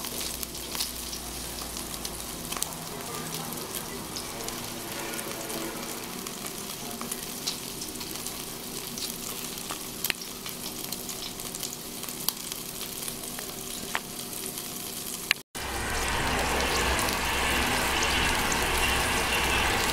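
Meat skewers sizzling and crackling on a smokeless charcoal grill, with scattered sharp pops. After a brief cut about fifteen seconds in, the sizzle is louder, over a low hum.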